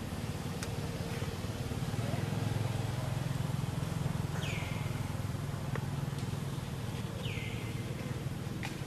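A steady low engine hum, swelling slightly a couple of seconds in, with two short downward chirps, one about halfway through and one near the end.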